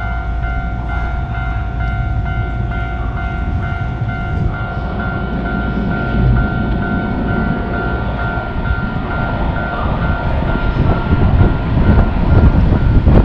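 Japanese railroad crossing alarm ringing in a repeated high ding, about two a second, over the rumble of a passing train that grows louder toward the end. The alarm fades out a couple of seconds before the end.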